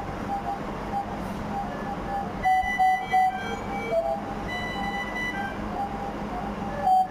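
Intensive-care medical equipment alarm beeping: runs of short electronic beeps, with a louder group of three beeps about two and a half seconds in and again near the end.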